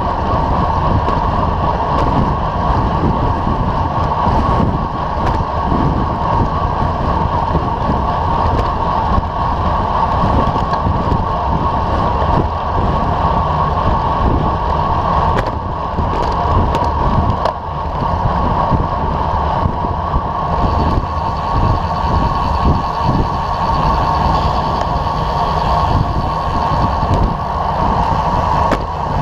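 Wind rushing over a bike-mounted action camera's microphone with steady road and tyre rumble as a road bike rides at speed. A few short clicks come about halfway through.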